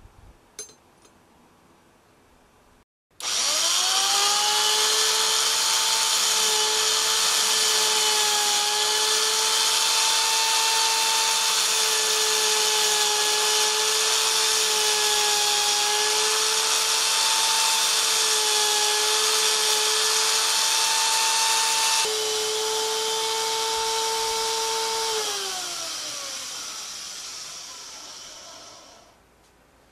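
A narrow belt sander (power file) held in a vise starts suddenly about three seconds in and runs steadily with a high whine and a gritty hiss as a small metal part is sanded on its belt. Near the end it is switched off and winds down, its whine falling in pitch as it fades out.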